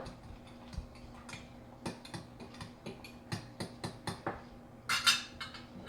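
Fork clicking and scraping against a glass measuring cup while stirring partly cooked eggs, with irregular taps a few times a second and a louder scrape about five seconds in. A steady low hum runs underneath.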